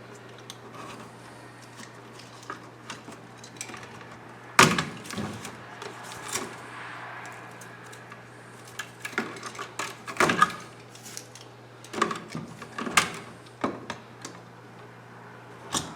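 Yellow outer sheathing being cut and peeled off electrical cables at a switch box: quiet scraping and rustling broken by several sharp clicks and knocks, the loudest about four and a half seconds in.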